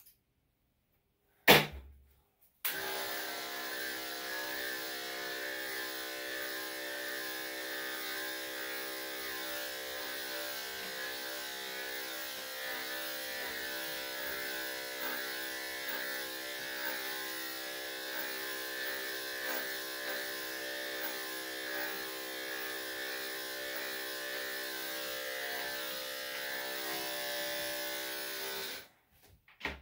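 Corded electric dog grooming clippers running steadily as they cut through a Cocker Spaniel's coat. A sharp click comes about a second and a half in, the clippers start about a second later, and they switch off near the end.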